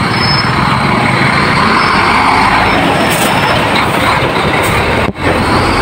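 Heavy dump truck passing close by on the road: loud engine and tyre noise that swells about two seconds in. There is a brief dropout near the end.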